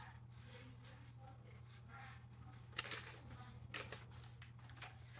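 Paper instruction leaflet rustling as it is handled and unfolded: quiet, with brief louder rustles about three seconds in and again a second later. A faint low steady hum underneath.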